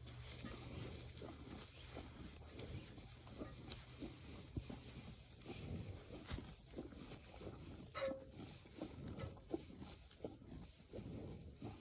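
Milk squirting from a cow's teats into a hand-held stainless steel bowl during hand milking, in short, uneven strokes a few times a second. There is one sharper knock with a brief ring about eight seconds in.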